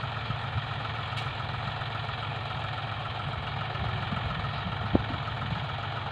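Diesel engines of two John Deere tractors hitched in tandem to a loaded sugarcane trolley, running steadily. A single sharp click sounds about five seconds in.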